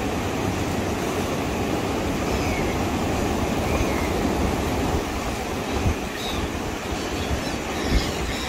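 Sea surf washing over a rocky shore in a steady rush, with wind buffeting the microphone in a couple of low thumps near the end. Faint gull calls come through now and then.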